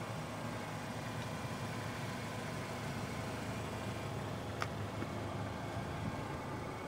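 Car engine idling steadily, with one short click a little past halfway through.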